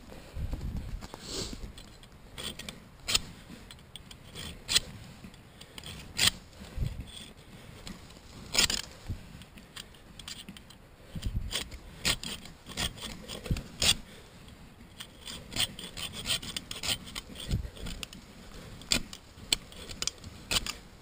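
Hand saw rasping through a whitetail buck's antler in uneven, stop-and-start strokes, with a few sharper knocks.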